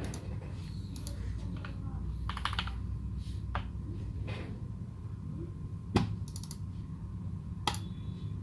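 Keystrokes on a Leopold FC660M mechanical keyboard with modded Cherry Retooled Black linear switches and GMK Dolch keycaps. The keys are pressed sparsely and irregularly, a few at a time, and the loudest stroke comes about six seconds in.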